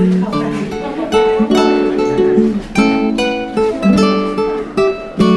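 Background music: an acoustic guitar picking a melody note by note.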